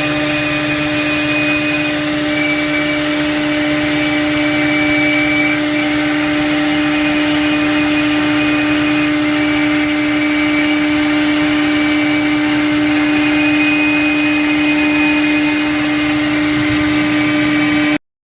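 CNC router spindle milling MDF: a steady high-speed whine with the hiss of the cutter in the board, cutting off abruptly at the end.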